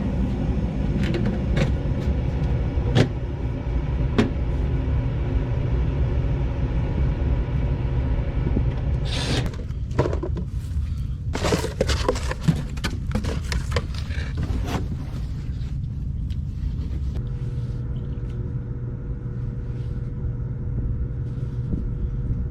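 Gas furnace running with its newly replaced blower motor and wheel, a steady low rumble of moving air. A few clicks early on, then a stretch of clattering handling noise in the middle, and a faint steady hum joins near the end.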